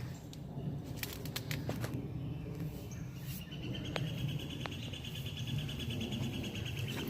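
A high, rapid trill from a small bird or insect, held steady for about four seconds from about three seconds in. A few sharp clicks come about a second in, over low rustling.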